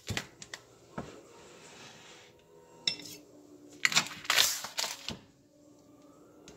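Plastic hot dog package set down and handled on a wooden cutting board: a few sharp knocks near the start and about a second in, then a loud stretch of plastic crinkling about four seconds in.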